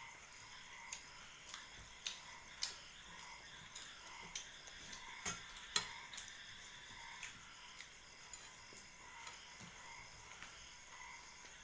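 Hand-eating sounds at steel plates: scattered sharp clicks and taps of fingers and rings on stainless steel as luchi is torn and curry scooped, with a faint evenly pulsing chorus of calls behind.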